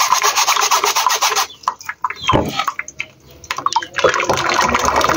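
A metal mesh sieve of flour batter worked over a pot with a rapid scratchy rasping, then a dull thump about two seconds in. From about four seconds in, thick batter pours from a container into the sieve and runs through into the pot.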